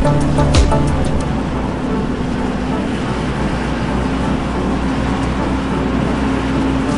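Steady low engine and road rumble of a car driving slowly along a street, heard from inside the vehicle.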